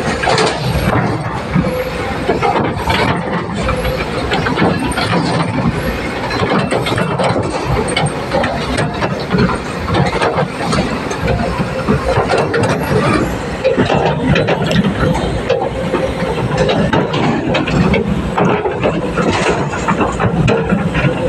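L&T excavator at work: a steady engine sound with scattered knocks and squeals from the machine.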